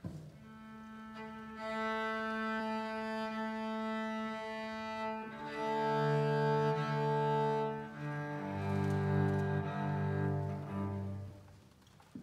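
Solo cello bowing slow sustained notes: one long held note, then a series of shorter notes that go lower, fading out near the end.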